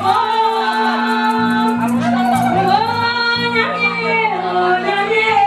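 Two women singing a gospel song together through microphones, their voices amplified over a backing of sustained low chords that change every second or two.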